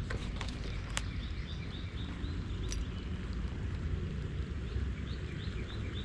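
A small bird chirping over and over, quick short chirps at an even rate, starting about two seconds in, over a steady low outdoor rumble. A few sharp clicks come in the first second.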